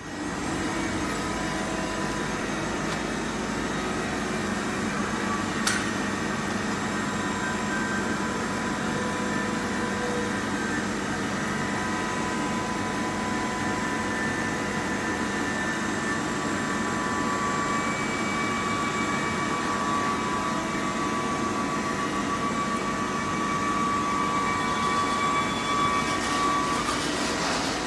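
Workshop machinery running: a steady mechanical hum with several steady whines, one sharp click about six seconds in, and one of the whines stopping near the end.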